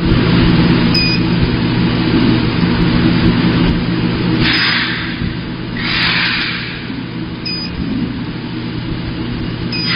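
Coffee bean packaging machine running with a steady mechanical hum. Short high beeps sound about every three seconds, and two brief hisses come near the middle.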